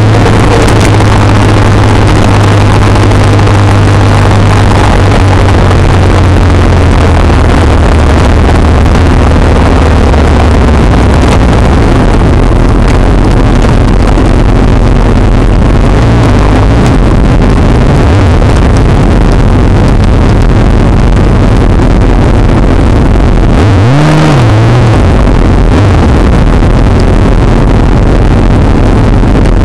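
Motorcycle engine and heavy wind rush on an onboard camera's microphone, very loud throughout. The engine's steady hum sinks under the wind after about ten seconds. About 24 seconds in, an engine revs up briefly and drops back.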